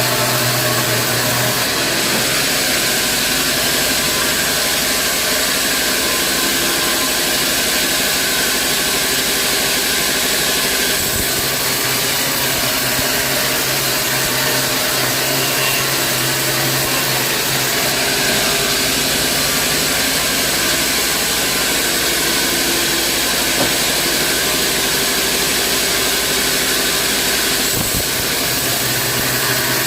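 A vertical band sawmill running steadily: a constant machine drone with a loud hiss and no breaks.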